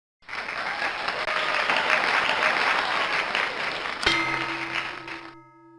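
Applause for about four seconds, then a sharp hit and a ringing musical tone that fades away.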